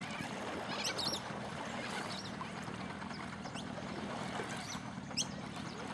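Steady low rumble of the tow boat's engine idling while the skier waits in the water, with several short high bird chirps over it.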